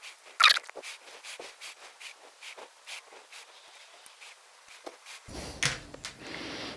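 Small hex key turning the grub screw that locks a shortened screwdriver shaft into its handle: light metal clicks and scrapes, with one sharper click about half a second in.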